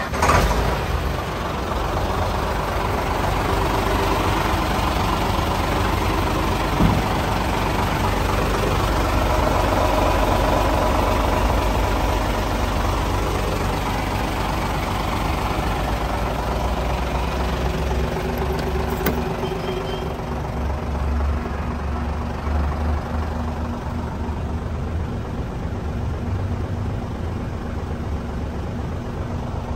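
Isuzu Giga truck's 6SD1 inline-six diesel engine idling steadily, a low, even hum.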